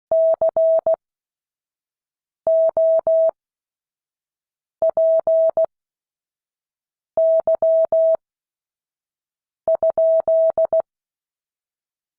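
Morse code practice sent as a single steady beep, keyed into short and long pulses of dots and dashes. Five characters come one at a time, each about a second long, with roughly a second and a half of silence between them: slow, widely spaced sending for learners to copy.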